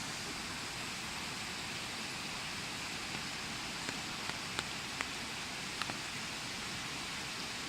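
Mountain stream rushing steadily over rocks, a constant even hiss of running water. A few short clicks sound over it between about four and six seconds in.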